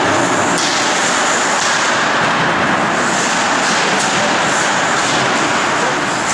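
Steady, loud roar of an ice hockey rink during play: skates on the ice and arena noise blended into an even hiss, with a few sharp clicks from sticks and puck.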